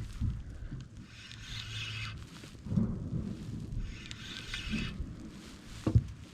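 Fishing reel being cranked in short spurts of about a second, three times, while a hooked white bass is reeled in, with low bumps of handling and a sharp knock near the end.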